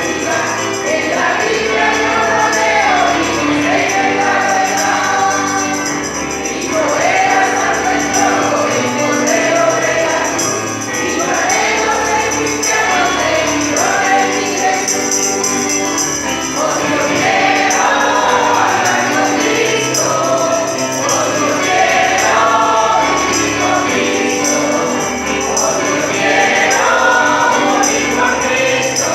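A choir of voices sings a Christian hymn in phrases of a few seconds each, to the continuous shimmer of a tambourine.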